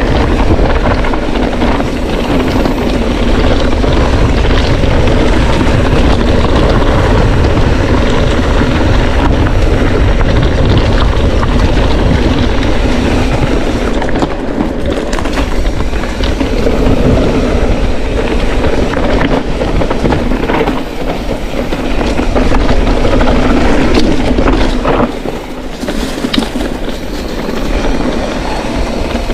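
Mountain bike riding a rough dirt trail: a continuous loud rumble and rattle of tyres over stones, with the chain and frame clattering, easing briefly near the end.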